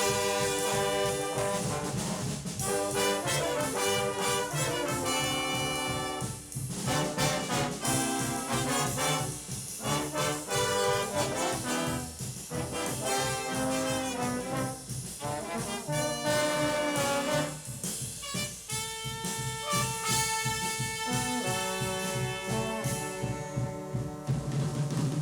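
Junior high school stage band playing big-band jazz, the brass section of trumpets and trombones to the fore in short phrases of held notes, with saxophones and rhythm section.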